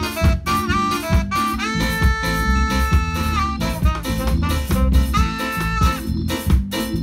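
Saxophone playing a jazz phrase over a drum kit, with a long held note about two seconds in and a shorter held note near the end.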